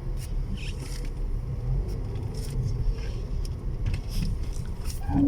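Toyota Vios 1NZ-FE inline-four engine running with a steady low rumble and no knocking. It sounds quiet and smooth after its rebuild for rod-bearing knock and oil burning.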